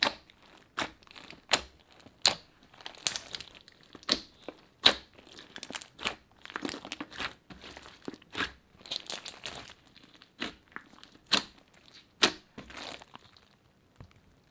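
Crunchy slime being squeezed and worked by hand, giving irregular sharp crackles and pops, several a second, that die away near the end.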